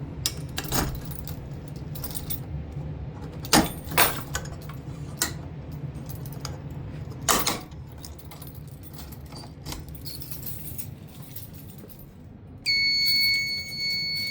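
Scattered clicks, knocks and clatter of handling. Near the end a steady high-pitched electronic alarm tone from the fire alarm test setup starts suddenly.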